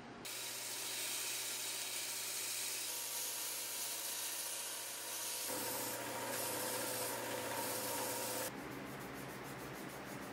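Belt grinder running, with the knife's brass butt cap held against the sanding belt: a steady grinding hiss over a low hum that stops abruptly about eight seconds in. After that come quick hand-rubbing strokes of an abrasive pad on the brass, about four a second.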